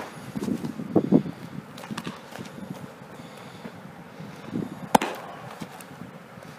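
Scuffing and shuffling of a catcher's cleats on infield dirt as he pops up to throw in the first second or so, then a single sharp pop of a baseball landing in the catcher's mitt about five seconds in.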